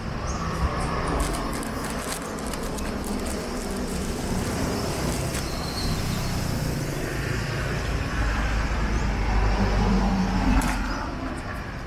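Road traffic: cars passing, a steady rumble with one vehicle growing louder about eight seconds in and fading away near the end.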